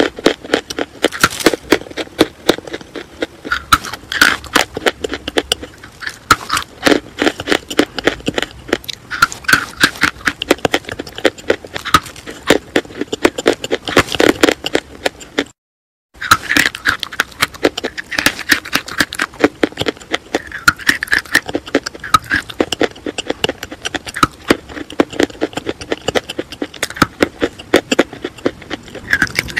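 Sticks of school chalk being bitten and chewed right at the microphone: dense, irregular crunching and crackling. The sound stops for a moment about halfway through, then carries on.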